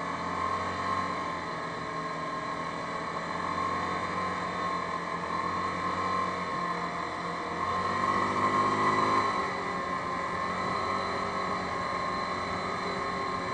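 Yamaha Grizzly 550 ATV's single-cylinder four-stroke engine running steadily while riding along a road, with a steady rush of noise. The engine note swells briefly about eight seconds in.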